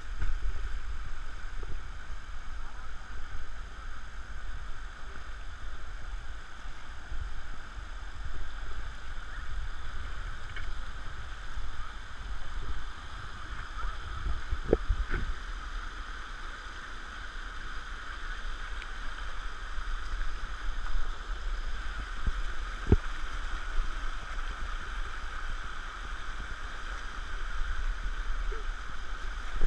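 Steady rush of flowing water, with an uneven low rumble underneath and a few sharp knocks.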